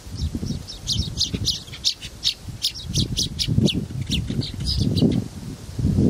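Songbird nestlings giving rapid, high-pitched begging chirps, several a second, as a parent bird arrives at the nest to feed them. A low rustle lies underneath.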